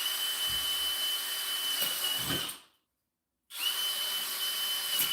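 Power drill boring a hole through plywood, running in two bursts of about two and a half seconds each, with a steady high-pitched motor whine over the cutting noise.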